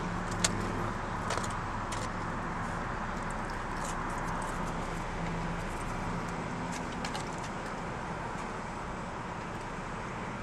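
Steady hum of a Ford car's cabin with the engine running, with a few short paper crackles and clicks as fries are handled in their paper wrapping. The sharpest crackle comes about half a second in.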